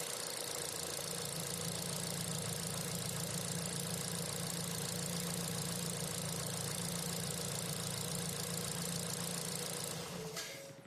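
Ford Escape's 2.5-liter four-cylinder engine idling steadily on fresh spark plugs, running smooth. About ten seconds in it stops suddenly, with a short click.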